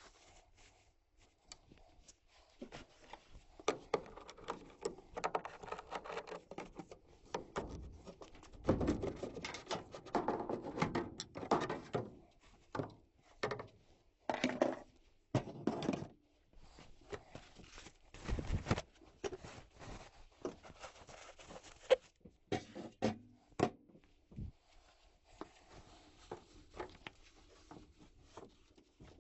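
Hand tools and sheet-metal furnace parts being handled: irregular clicks, knocks and scraping, with one sharp click standing out about two thirds of the way through.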